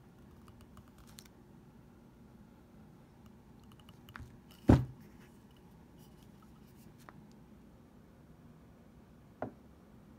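Handling noise from a restored spike hammer being turned over in the hand: a few light clicks, one sharp knock about halfway through, and a lighter knock near the end.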